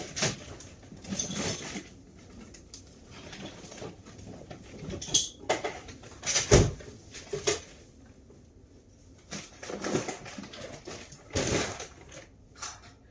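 Scattered knocks, scrapes and clatter, irregular, with a sharp thump about six and a half seconds in.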